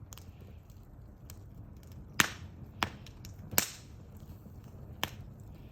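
Wood in a bonfire crackling, with four sharp pops over a low steady rumble; the loudest come about two and three and a half seconds in.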